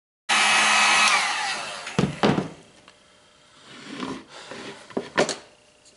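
Electric heat gun blowing, switched off about a second in so that its fan whine falls away. Then a pair of clunks as it is set down on the wooden bench, and a few lighter knocks as the HDPE helmet shell is handled.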